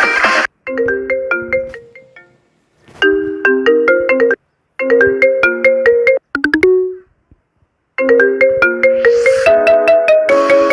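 Several short iPhone-style phone ringtones played one after another, marimba-like melodic phrases, most cut off abruptly after a second or so with brief gaps between them, like ringtones being previewed in turn. A longer ringtone melody starts about eight seconds in.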